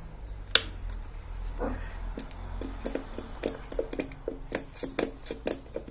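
A run of small clicks and taps from plastic containers and utensils being handled during slime making. There is one sharp click about half a second in, and the taps come several a second and grow denser from about halfway through.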